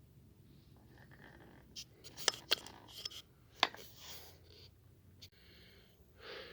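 Handling noises in a small room: rubbing and rustling with a few sharp clicks, the loudest of them about two and a half seconds in and again just over three and a half seconds in.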